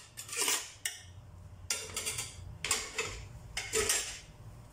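A metal spoon scraping cooked rice out of a perforated metal colander into a steel pot, four scrapes about a second apart.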